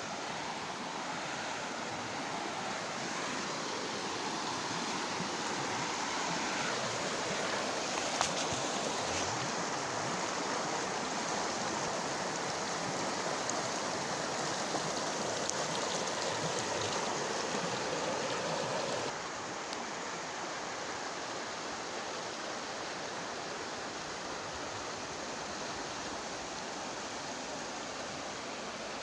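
River water flowing and rushing steadily, with a single faint click about eight seconds in; the rush drops a little in level about two-thirds of the way through.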